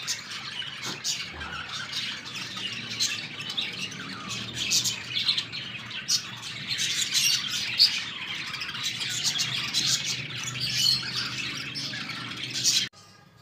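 Birds chirping and squawking, many short calls overlapping densely, over a faint low hum; all of it cuts off suddenly near the end.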